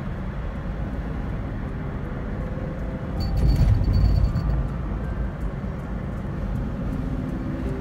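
Road and engine rumble heard from inside a moving car, swelling louder for about a second midway through. Soft background music starts to come in during the second half.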